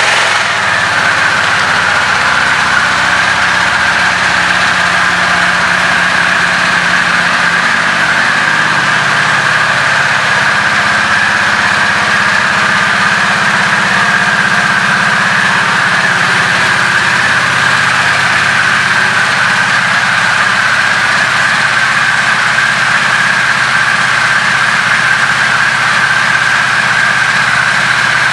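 A 2023 Harley-Davidson Nightster Special's liquid-cooled Revolution Max 975T V-twin idling steadily just after start-up. Its note settles slightly in the first second, then holds even.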